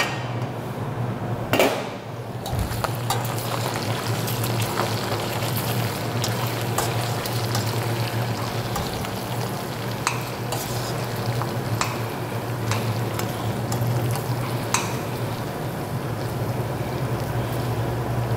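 Diced bacon bubbling and sizzling in a small stainless steel saucepan, cooking slowly in the water it has released. A metal spoon stirs and clicks against the pan now and then, with a louder metal clank about a second and a half in.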